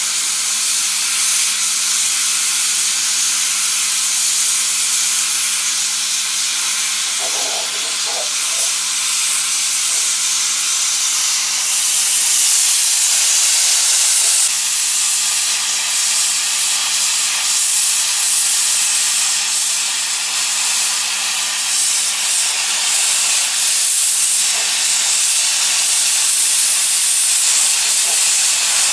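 Steady hiss of hot compressed air from the nozzle of a GEP-2 hot-air plastic welding gun as it melts a polyethylene filler strip into a barrel seam, a little louder from about twelve seconds in.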